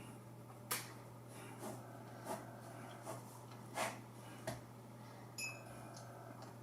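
Faint room tone with a steady low hum, broken by several brief, faint clicks and puffs spread through the pause.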